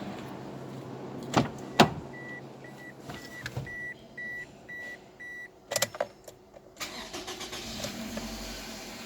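Two loud clunks, then a car's warning chime beeping at one pitch about twice a second for a few seconds, a couple of clicks, and the Toyota Isis's 1AZ-FSE 2.0-litre four-cylinder engine starting about seven seconds in and settling into idle.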